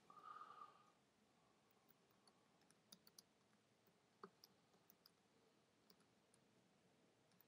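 Near silence, with a few faint clicks of computer keyboard keys being typed.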